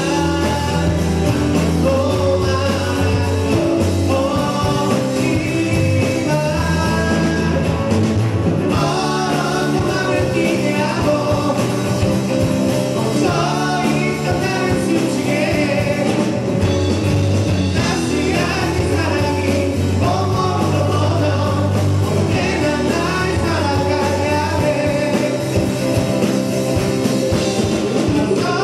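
Live rock band performing a song: a sung lead vocal with backing vocals over acoustic and electric guitars, bass guitar, drums and keyboard.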